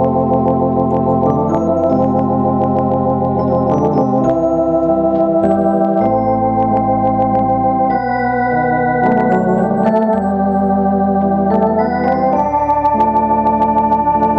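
Electronic drawbar organ playing held chords that change every second or two. Each new chord starts with a short click.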